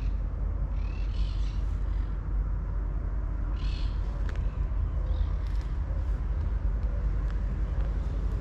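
Outdoor ambience: a steady low rumble runs throughout, and birds give short calls three or four times.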